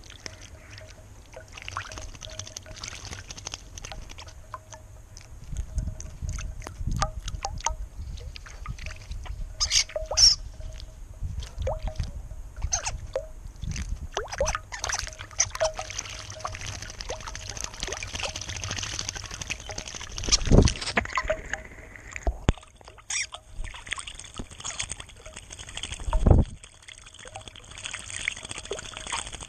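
Juvenile starlings bathing in a shallow stone birdbath: water splashing and dripping as they flap and dip, with many sharp taps and a few dull thumps close to the microphone.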